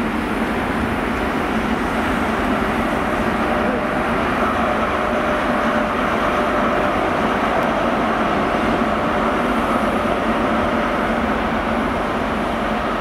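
A GWR High Speed Train with a Class 43 diesel power car running past and moving away, a steady engine and rail noise with a faint steady tone in the middle as the power car goes by.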